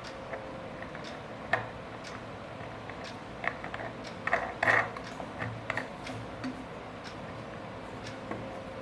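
Light clicks and taps of small hard parts being handled, scattered irregularly, with a brief cluster of louder clicks about four and a half seconds in.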